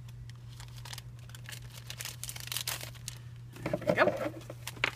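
Clear plastic cellophane gift bag crinkling and rustling as it is handled and opened, in scattered bursts, the loudest about four seconds in.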